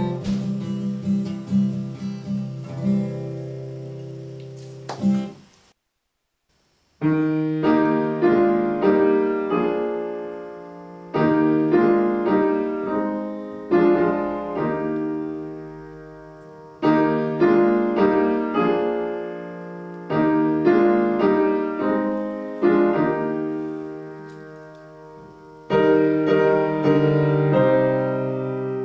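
Acoustic guitar strummed as the last bars of a song ring out, cutting off suddenly about five seconds in. After about a second of silence, piano music follows: slow chords struck every few seconds, each ringing and fading.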